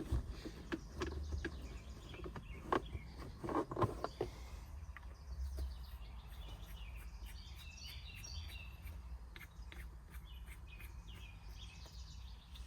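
A few sharp clicks and knocks of small parts being handled in the first four seconds, then birds chirping in the background over a low steady rumble.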